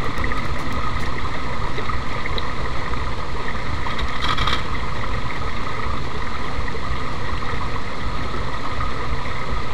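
Small stream rushing and splashing over rocks, a steady, loud rush of water with a deep rumble underneath.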